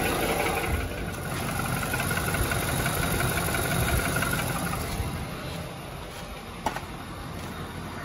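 2018 Nissan Titan's V8 idling warm with a rhythmic knocking, heard with the climate control on. The owner suspects the A/C compressor clutch, a fan clutch or an accessory pulley rather than true engine knock. The sound gets quieter about five seconds in, and a single sharp click comes near the end.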